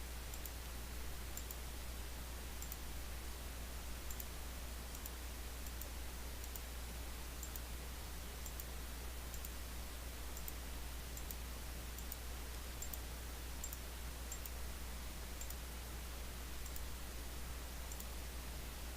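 Faint computer mouse clicks, roughly every two-thirds of a second, as points are placed one by one with a pen tool while tracing an outline, over a steady low hum.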